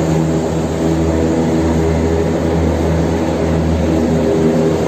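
Steady low hum of cable car machinery in the lift station, heard from inside the gondola cabin.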